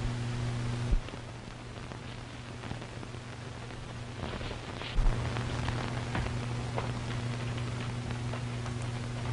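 Horses' hooves clopping lightly and irregularly from about four seconds in. Underneath is the steady hiss and low hum of an old 1930s film soundtrack, broken by two short low thumps, about a second in and about five seconds in.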